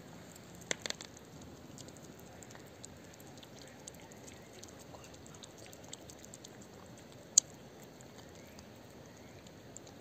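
Cats eating wet cat food chunks in gravy: faint chewing with many small, irregular wet clicks. A few sharper clicks come just under a second in, and one loud single click about seven seconds in.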